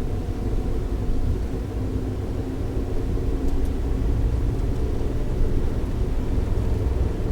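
Suzuki Jimny JB64 being driven: a steady low rumble of engine and road noise, with a faint even engine drone.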